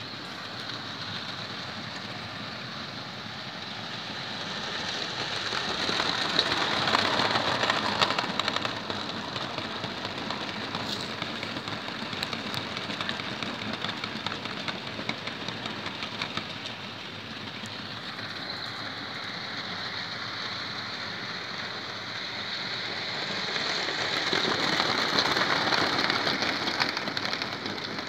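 Model train running on a layout: steel wheels rolling and clattering over the track, swelling louder twice as the train comes close. A steady high whine joins about two-thirds of the way through.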